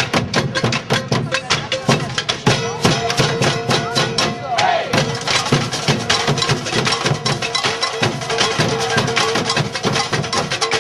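Live music driven by fast, steady percussion strikes over a held note, growing fuller and brighter about halfway through.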